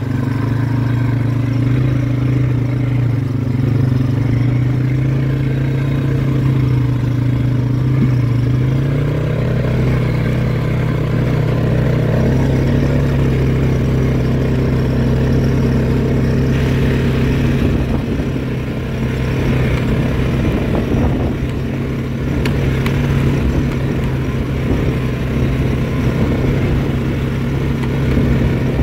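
Four-wheeler ATV engine running steadily under way, its note shifting slightly about a third of the way through, with a few brief knocks from the machine.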